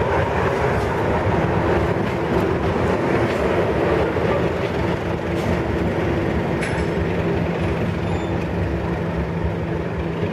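English Electric Class 37 diesel-electric locomotive's V12 engine working as the locomotive moves off, a loud, steady engine drone holding a constant pitch.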